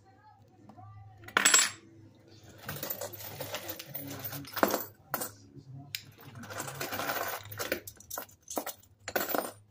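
Silver coins, among them a Peace dollar, clinking and clattering as they are handled and set down on a wooden board. The loudest clink comes about a second and a half in, and several sharper clicks and stretches of rattling follow.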